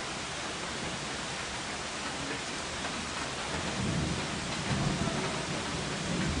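Steady rain falling, an even hiss, with a low rumble of thunder rolling in a little past halfway.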